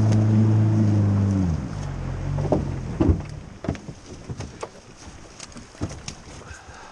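Boat's outboard motor running steadily at speed, throttled back about a second and a half in and falling quiet about three seconds in as the boat reaches the bank. Scattered knocks and clunks in the boat follow.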